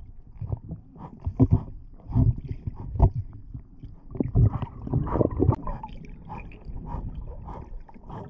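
Muffled water noise picked up by a submerged camera: irregular gurgles and low knocks, several a second, easing off near the end.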